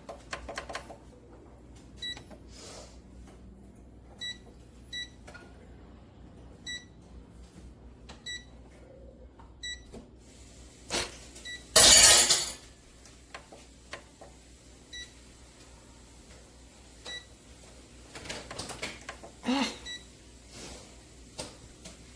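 Short electronic beeps from the Cuisinart TOA-65 air fryer toaster oven's digital control panel, sounding one at a time at irregular intervals, as its keys are pressed. A loud clatter comes about twelve seconds in, and there is some knocking a few seconds before the end.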